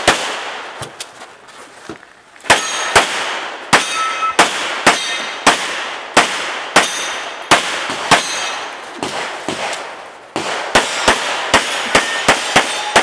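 Strings of pistol shots fired fast, about two a second, with a short lull near the start and another about ten seconds in. A few shots are followed by a brief metallic ring.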